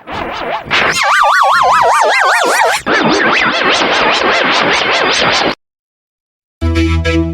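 Heavily processed audio with a fast warbling vibrato effect over a noisy wash, including a wobbling tone that slides downward, cutting off abruptly about five and a half seconds in. After about a second of silence, keyboard synth music starts near the end.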